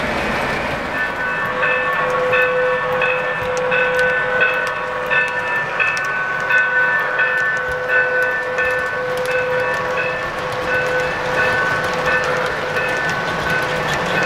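Three-rail O-scale model freight train rolling past, its wheels rattling steadily on the track with fine clicking. A held, whistle-like pitched tone sounds on and off over the rattle from about a second in until near the end.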